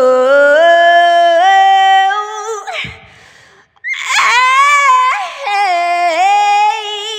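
A woman singing blues vocal runs. The first phrase climbs step by step up a scale. After a breath of about a second, a second, higher run bends and wavers up and down.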